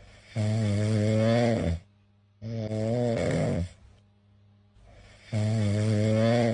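Cat snoring in a steady rhythm: three buzzing, pitched snores of a second or so each. The first two come close together and the third follows after a longer pause near the end.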